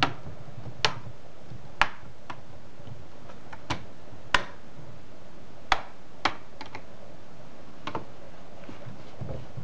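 Plastic clips of an HP G62 laptop's screen bezel snapping into place as it is pressed along the edges: about a dozen sharp clicks at uneven intervals. Each click is the sign that a clip has seated properly.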